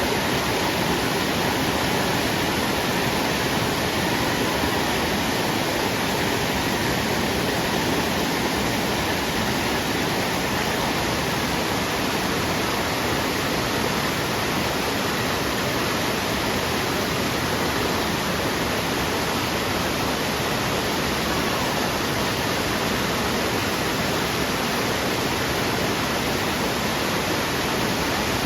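Anna Ruby Falls pouring: a steady, loud rush of falling water.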